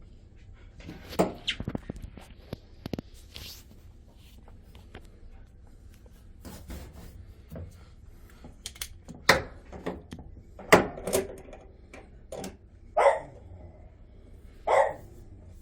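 Scattered sharp knocks and clatter from hands and tools working on a drum washing machine, with a dog giving a few short barks near the end.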